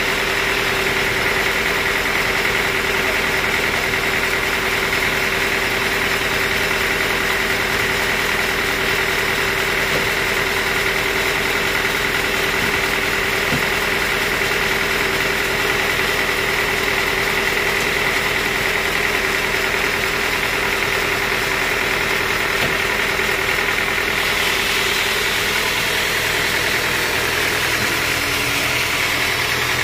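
Band sawmill running without cutting: its drive and blade give a steady hum with a high, even whine.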